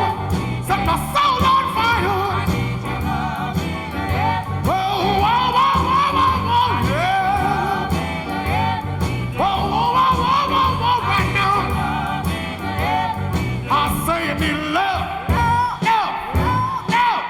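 1962 R&B duet record: lead vocals sung over a full band with a steady beat.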